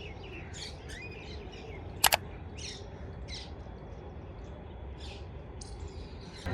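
Small birds chirping in scattered short calls over a steady low outdoor background hum, with a sharp double click about two seconds in.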